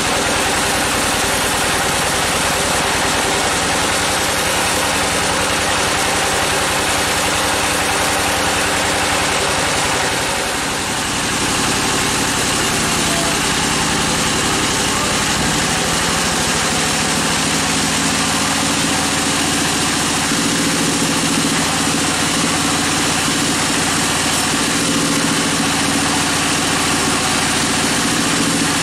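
Band sawmill running: the bandsaw blade cuts through a large agathis (damar) log over the steady drone of the mill's drive. About ten seconds in the sound dips briefly, and a steadier hum follows as the mill keeps running.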